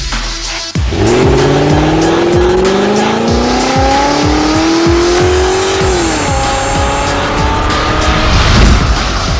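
A car engine accelerating, its pitch rising steadily for about five seconds and then falling away, over intro music with a steady beat.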